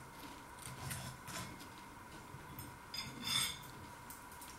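Quiet chewing of crunchy battered scampi, with faint clicks and soft rustles and one brief sharper crunch about three seconds in.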